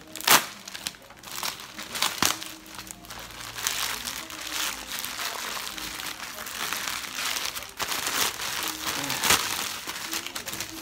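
A plastic courier pouch being opened and crinkled, with a sharp crackle about a third of a second in. It is followed by steady rustling of plastic and bubble wrap as a bubble-wrapped package is pulled out.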